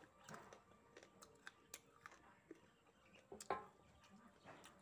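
Faint close-up eating sounds: chewing and sucking on chicken bones, with scattered small mouth clicks and smacks and one louder smack about three and a half seconds in.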